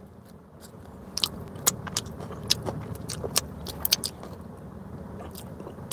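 Scattered small clicks and crinkles of hands handling bread rolls and their wrapping, with a steady low hum in the car cabin beneath.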